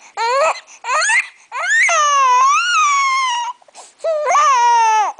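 Seven-week-old baby crying from hunger: two short cries, then a long wailing cry of about two seconds, then another cry near the end.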